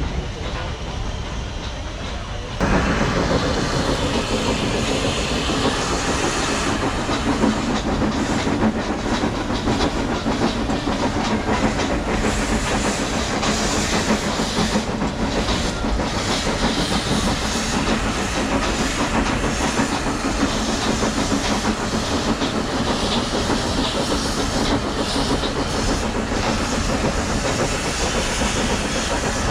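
Nilgiri Mountain Railway train running on the hill climb, with wheels clattering over the rails and a steady hiss. The sound jumps sharply louder about two and a half seconds in.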